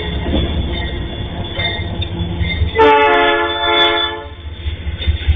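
Diesel freight locomotive passing with a steady low engine rumble. About three seconds in it sounds its horn once, a steady chord held for about a second and a half.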